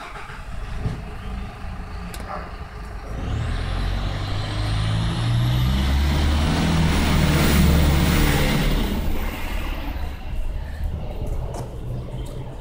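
A motor vehicle's engine driving past: it grows louder, is loudest about eight seconds in, then fades.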